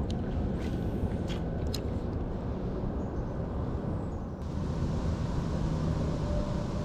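Steady low rumble of wind buffeting the microphone outdoors, with a few faint clicks.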